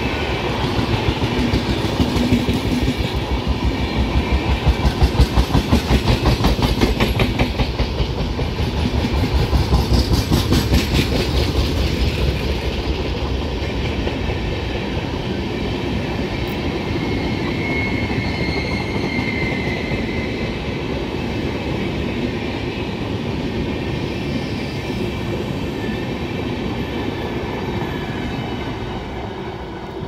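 Long express train's red-and-grey LHB passenger coaches passing at speed, their wheels clicking rhythmically over the rail joints. The clicking is loudest for the first dozen seconds, then eases into a steadier rumble that fades as the last coach goes by.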